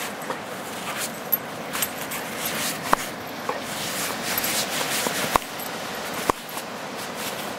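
Dog digging in sand with its front paws: rapid, continuous scraping and spraying of sand, with a few sharp clicks standing out.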